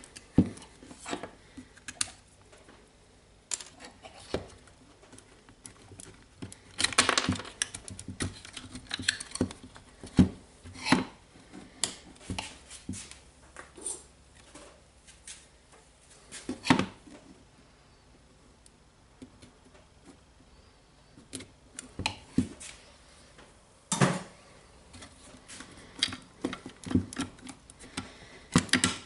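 Plastic housing parts of a DeWalt DCD796 cordless drill handled and set down on a wooden tabletop: irregular clicks, taps and knocks, with a few louder clatters.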